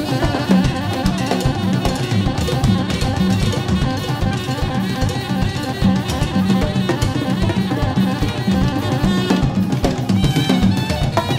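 Recorded instrumental jazz: a drum kit and hand percussion playing a busy, fast groove with a recurring low drum hit.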